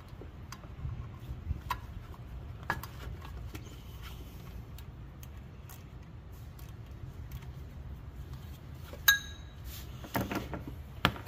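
Ratchet and socket on the water pump pulley bolts, loosening them: scattered metal clicks and tool knocks, with one sharp metallic clink about 9 seconds in that rings briefly, and a cluster of clicks near the end.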